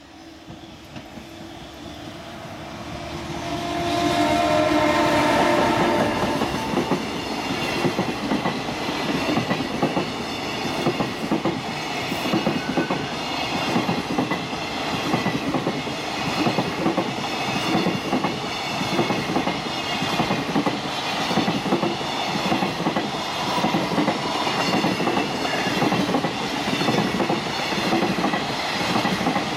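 Electric freight locomotive approaching and passing close by, loudest about four seconds in, with a held tone as it goes past. It is followed by a long train of empty container flatcars rattling by at speed, the wheels clattering over the rail joints in a steady repeating rhythm.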